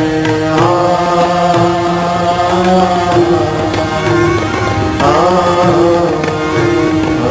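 Male voice singing a devotional bhajan melody in long held notes that slide from one to the next, with instrumental accompaniment.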